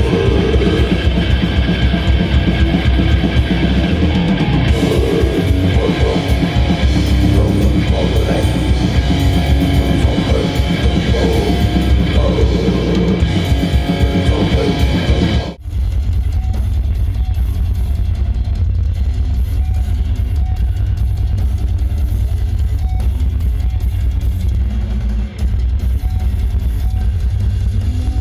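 A metal band playing live, with distorted electric guitars, bass and a drum kit, recorded on a phone in the crowd. About halfway through, the sound cuts to another band's set. There the phone's mic is overwhelmed, and the recording is mostly booming low end with the guitars and vocals muffled.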